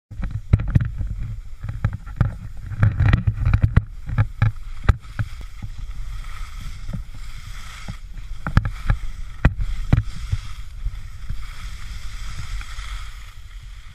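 Wind buffeting the camera microphone as a skier runs downhill, with skis hissing over packed snow. Sharp knocks come often in the first five seconds and twice more near nine and ten seconds.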